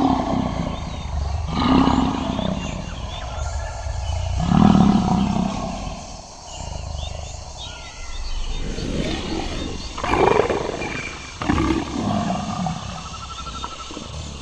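Tiger growling and roaring in a string of rough calls a second or two apart, the loudest about five seconds in.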